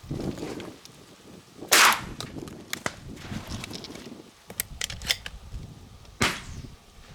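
Two close shotgun shots about four and a half seconds apart, the first the loudest, with several fainter sharp cracks in between, during dove shooting.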